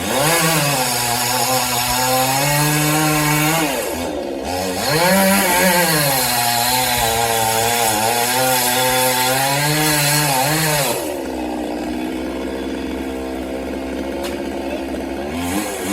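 Chainsaw at full throttle cutting into a coconut palm trunk, with a brief drop in revs about four seconds in before it bites again. About eleven seconds in it comes off the cut and runs at lower revs.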